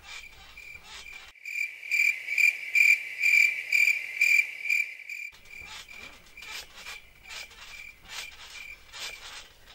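Crickets chirping in an even train, about two chirps a second on one high pitch, louder for a few seconds in the middle.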